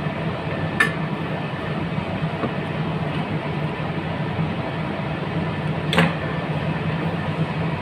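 Steady low machine-like hum, with two sharp clicks, one about a second in and one about six seconds in.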